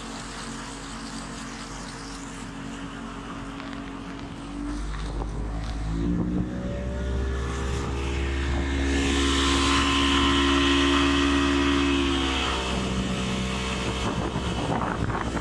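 Motorboat engine running steadily, then opening up about five seconds in: the engine note rises and a rush of wind and water builds, loudest in the middle, before the engine eases back a little near the end.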